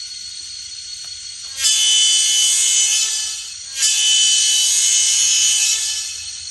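Sound decoder of an N scale EMD SD40T-2 model locomotive playing its diesel running sound through the model's small speaker, then two long blasts of the multi-chime air horn, the first starting under two seconds in, the second fading out near the end.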